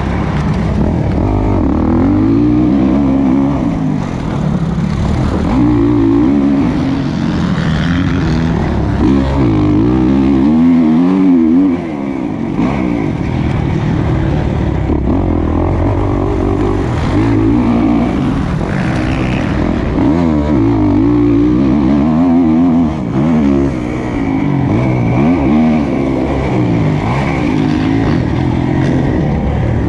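2020 Kawasaki KX450's four-stroke single-cylinder engine with a Pro Circuit slip-on exhaust, heard up close from on board, revving hard and backing off again and again under race load, its pitch rising and falling with each burst of throttle.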